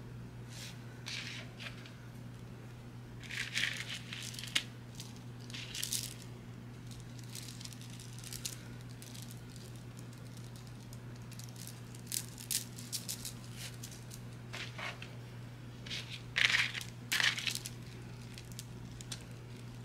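Beaded bracelets clicking and rattling as they are slipped into sheer organza drawstring bags, with light rustling of the fabric. The clicks come in scattered clusters, busiest a few seconds in and again near the end, over a faint steady hum.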